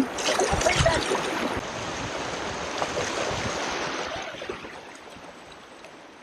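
River rapids rushing, a steady wash of moving water that fades away over the last couple of seconds.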